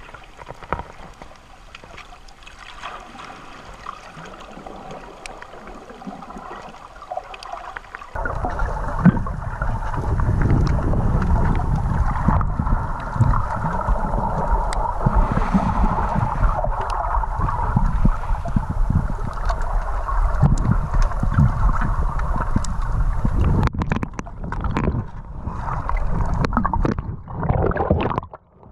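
Underwater water noise picked up by a GoPro in its waterproof housing: a muffled hiss with scattered faint clicks, then about eight seconds in a sudden jump to a much louder rushing and gurgling that carries on for most of the rest and turns uneven near the end.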